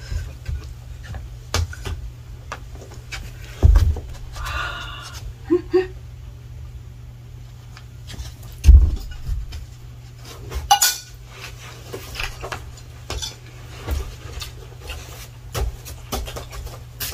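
Scattered knocks and clatter of plates and cutlery during a meal, with two heavier thumps about four and nine seconds in. Brief snatches of a voice are heard in between.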